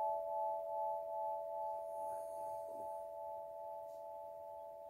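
Quartz crystal harp ringing on after a mallet strike: a few held, clear tones that slowly fade, the upper one pulsing gently.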